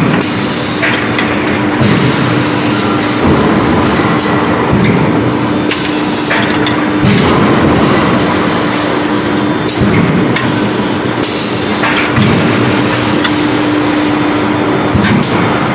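Induction heating forging machine with its automatic bar feeder running: a loud steady hum with a constant low tone, broken every one to three seconds by a short hiss and metallic clatter.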